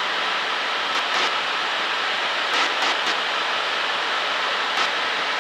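Steady cabin noise of a single-engine Cessna in level cruise flight: engine and propeller drone mixed with wind rush, with a faint steady low hum.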